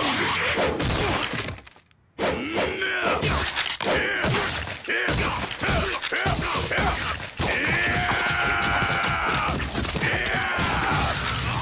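Anime fight sound: a man yelling and screaming in pain, with sharp hit and smash effects and background music. There is a long cry near the end, and a brief cut to silence about two seconds in.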